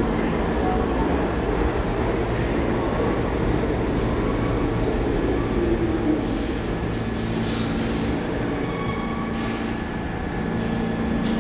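R46 subway car standing at the platform with its doors open, its onboard equipment running with a steady hum and a few held low tones.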